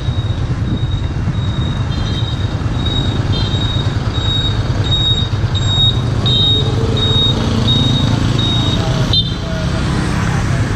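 Street traffic with a motor scooter engine running close by, and a bus and a motorbike passing. A high electronic beep repeats about twice a second and stops about nine seconds in.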